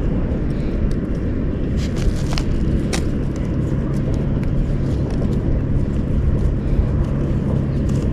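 Steady low engine drone with a hum, and a few light clicks about two to three seconds in.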